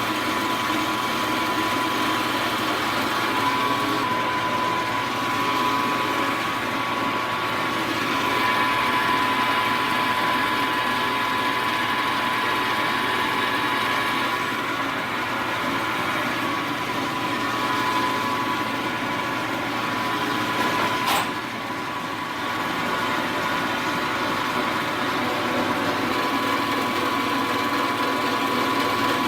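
Milling machine running steadily with a constant whine while it takes a 0.020-inch finishing cut to bring the part to size. One sharp click comes about 21 seconds in, and the sound is a little quieter after it.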